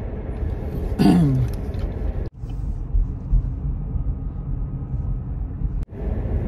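Steady low road and engine rumble inside a moving car's cabin. The sound drops out briefly twice. About a second in, a short pitched sound falls in pitch and is the loudest moment.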